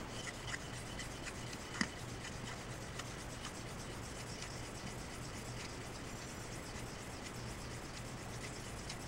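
Straight razor being honed on a 1,000-grit water stone: faint, steady rubbing of the steel blade stroked back and forth across the stone, setting the bevel. A light click about two seconds in.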